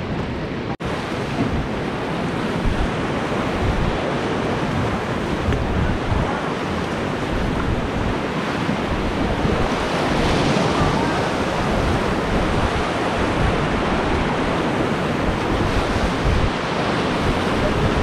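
Rushing whitewater of river rapids, a steady noisy rush of water with wind buffeting the microphone. The sound cuts out for an instant about a second in.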